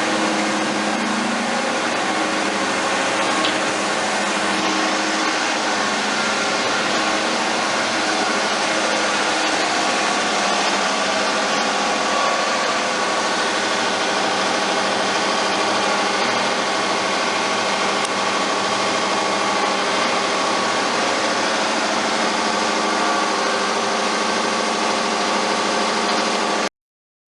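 Giddings & Lewis G60-FX CNC horizontal boring mill running under power: a steady machine hum with several steady whining tones. It stops abruptly near the end.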